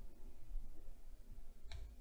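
Quiet pause with a low rumble and faint scattered ticks, then a single short, sharp click near the end.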